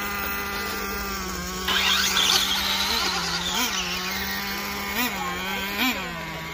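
Small engine idling steadily, its throttle blipped briefly about once a second from about halfway in. A louder rushing noise rises over it for a couple of seconds near the start.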